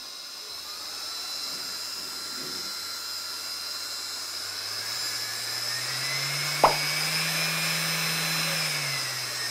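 A 775 DC motor driven through a speed controller, whining higher and louder as its speed is turned up, then easing off slightly near the end. A single sharp click comes about two-thirds of the way through.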